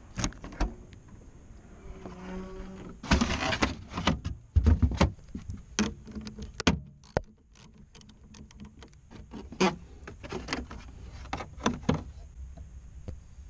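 Ratchet with a 10mm deep socket clicking and metal clinking while the negative battery terminal clamp is loosened, with louder rustling and knocks from about three to five seconds in and a brief whir about two seconds in.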